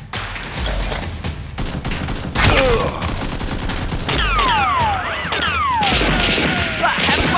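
Rapid bursts of gunfire sound effects, shot after shot, with several falling whistling tones in the second half.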